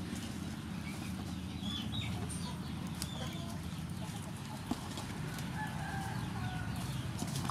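Chickens clucking, with a rooster crowing briefly about five and a half seconds in, over a steady low background rumble. A single sharp click comes about four and a half seconds in.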